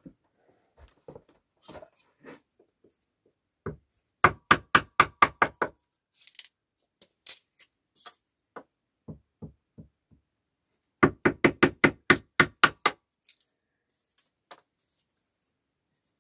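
Wood knocking on a wooden tabletop while a thin stick is split into kindling by hand. There are two quick runs of sharp knocks, about six a second, the first about four seconds in and the second about eleven seconds in, with scattered lighter taps between.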